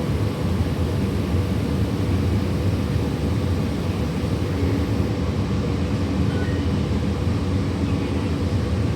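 Transit bus under way, heard from inside the passenger cabin: steady engine and road noise, strongest low down, with no distinct events.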